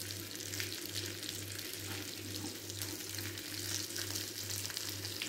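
Mutton chops frying in hot oil in a pan: a steady sizzle with fine crackling as the oil is spooned over them.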